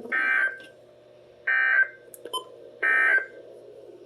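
Three short buzzing electronic data bursts, about a second and a half apart: the EAS (SAME) end-of-message code that closes an emergency alert over weather radio.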